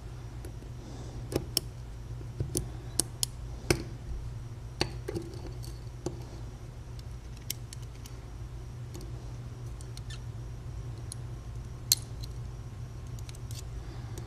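Small metal lock pins and springs being handled and set down on a hard surface: scattered light clicks and taps, a cluster of them in the first few seconds and a sharper click near the end, over a steady low hum.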